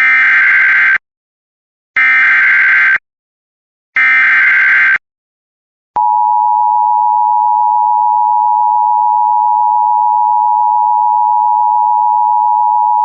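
Emergency Alert System alert opening: three one-second bursts of SAME header data, a raspy electronic warble, each followed by a second of silence. Then, about six seconds in, the steady two-tone EAS attention signal starts and holds.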